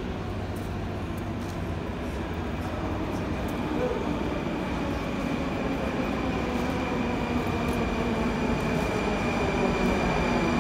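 Moscow Metro train approaching the platform: a steady rumble that grows gradually louder, with a thin, steady high whine coming in about four seconds in and strengthening.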